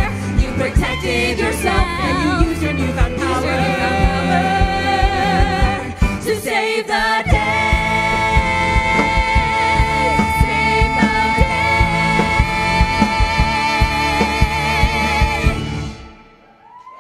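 Live ensemble of four voices singing over a band of piano, drums, bass, guitar and violin, with a steady drum beat. About seven seconds in the voices settle into one long held chord, and the whole band stops together on the final cutoff near the end.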